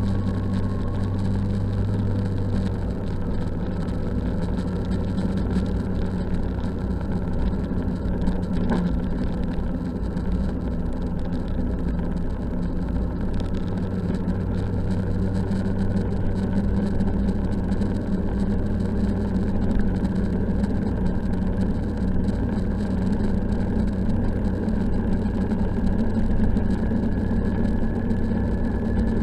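Snowmobile engine running steadily at trail speed, with the engine note creeping slightly higher in the second half.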